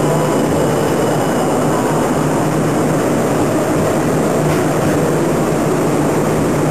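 Steady hum and rushing noise from an Odakyu EXE (30000 series) electric train standing at the platform, with an even low drone and no clatter or breaks.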